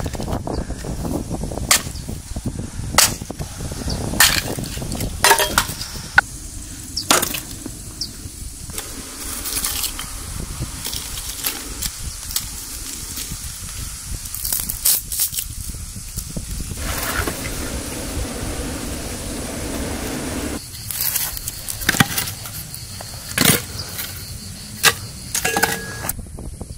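Sharp chopping strikes on wood, irregular, roughly one every second or two with a longer break partway through.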